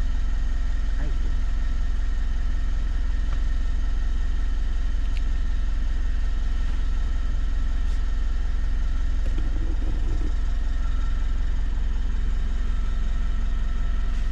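Car engine idling steadily, heard from inside the cabin as a constant low hum.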